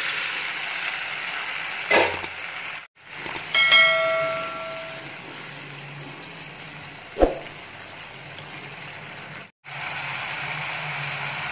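Mutton curry sizzling and bubbling in a kadai on the stove. A sharp knock comes about two seconds in, then a ringing metallic clang of a utensil striking the pan just under four seconds in, and another knock around seven seconds in.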